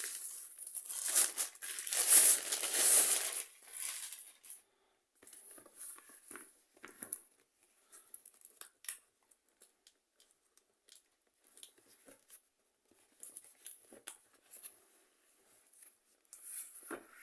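Plastic parcel packaging being torn open and crinkled, loudest in the first few seconds, then sparse small crinkles and clicks as it is handled.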